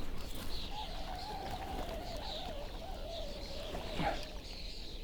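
Birds chirping and calling. A long wavering mid-pitched tone runs from about a second in until about four seconds, ending with a brief knock.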